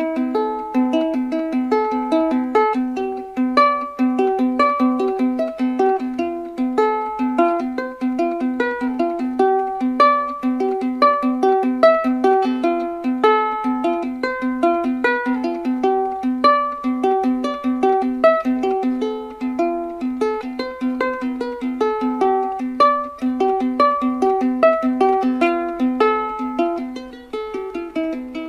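Background instrumental music: a plucked-string tune with a fast, evenly repeated low note under a picked melody.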